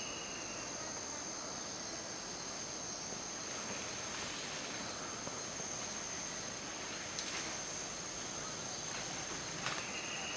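A steady, unbroken high-pitched insect drone over a soft forest hiss, with two short sharp clicks about seven and nine and a half seconds in, the second the loudest.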